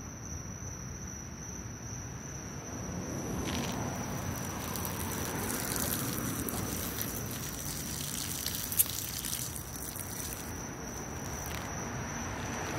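A steady high insect trill, with rustling and handling noise that swells in the middle and one sharp click about nine seconds in.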